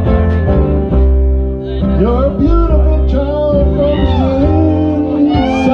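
Live band playing a slow country song, acoustic guitar over a steady bass, with a melody line gliding up and down above.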